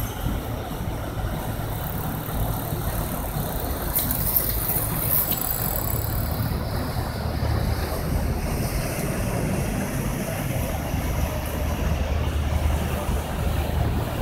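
Steady low engine rumble of a glass-roofed river tour boat passing, over an even background hiss, with a brief click about four seconds in.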